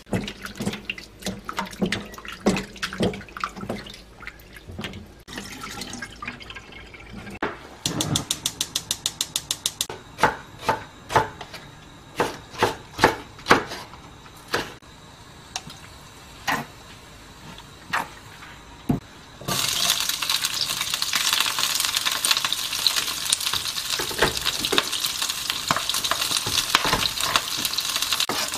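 Webfoot octopus being rubbed and rinsed by hand in a steel bowl of water, with water sloshing and splashing. Then a knife chops green onions on a wooden cutting board, first in a quick run of about ten chops a second, then in slower single chops. About two-thirds of the way through, a steady loud sizzle starts as the green onions fry in the hot pan.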